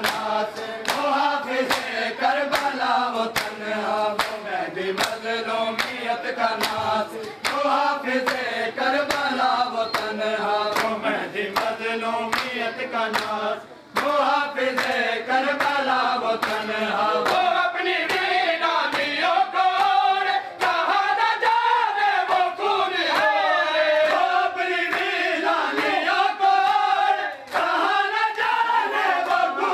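Crowd of men chanting a noha (Shia mourning lament) together, over a steady beat of sharp hand slaps on bare chests (matam). The chant and slapping break off briefly about halfway through.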